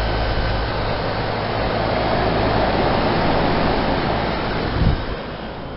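Heat pump outdoor unit running in heat mode: a steady low compressor and fan hum under a rushing hiss. About five seconds in there is a thump, and the low hum drops away as part of the unit shuts down.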